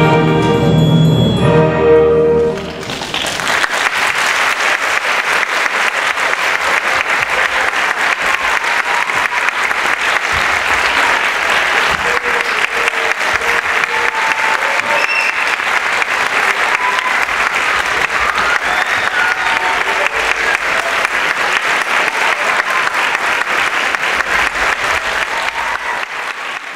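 Classical orchestral music ends on a final chord, then an audience applauds steadily, the clapping dying away at the end.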